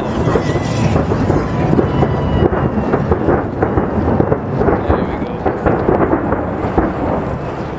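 Dense barrage of fireworks shells bursting, many overlapping bangs and crackles merging into a continuous rumble.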